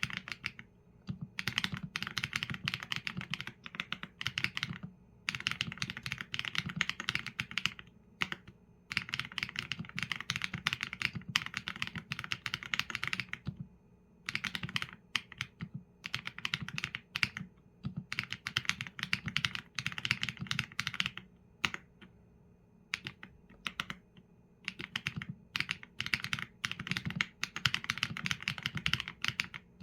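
Typing on a Qsenn A75 mechanical keyboard with Leobog Graywood V4 linear switches and PBT keycaps: rapid runs of keystrokes broken by short pauses of about a second.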